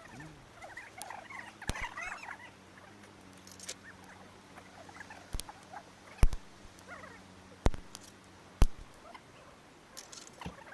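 Wood campfire crackling: irregular sharp pops and snaps, a few of them loud, over faint squeaks and hisses from the burning wood.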